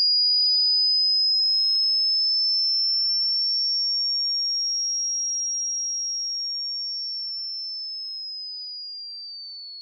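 A single high-pitched electronic pure tone, like a hearing-test tone. It drifts slightly up in pitch through the middle, then glides down over the last few seconds while fading steadily.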